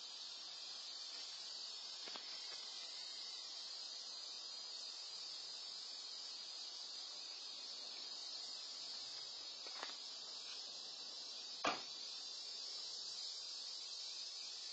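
Steady high-pitched chorus of insects. A faint tick about ten seconds in and a single sharp click about twelve seconds in, the loudest sound.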